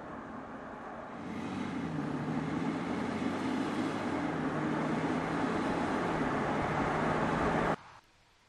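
Audi A5 Cabriolet driving past on the road: engine note over tyre and road noise, growing louder about a second in as the car approaches, with a brief dip in the engine pitch about four seconds in. The sound cuts off suddenly near the end.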